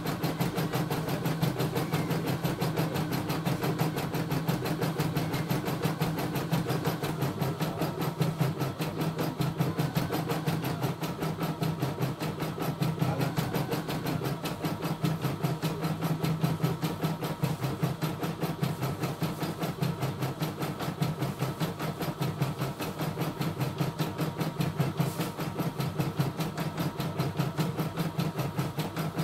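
CNY E960 computerised embroidery machine stitching a design, its needle running in a rapid, steady, even rhythm of strokes.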